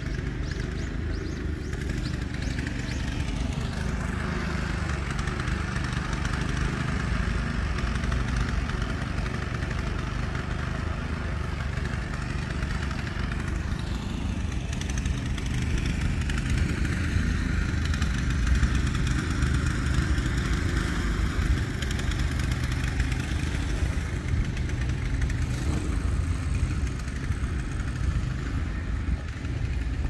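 Steady low rumble of road traffic, growing slightly louder about halfway through.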